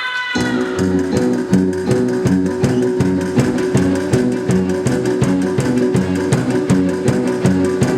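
Instrumental music led by a strummed guitar, playing a quick, even rhythm that comes in just after the start.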